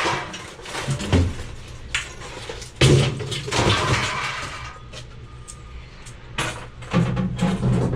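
Scrap metal being handled and dropped: a run of irregular clanks and knocks over a background rumble, with the loudest knock about three seconds in.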